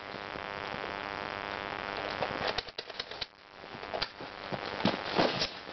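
Airsoft guns firing during a backyard skirmish: a steady buzz for the first two seconds or so, then a string of sharp cracks, several in the second half.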